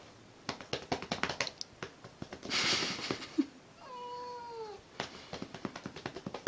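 Open hand slapping a tabby cat's flank in quick, irregular pats, with a short hiss partway through. About four seconds in the cat gives one drawn-out meow that falls in pitch, and the slaps resume after it.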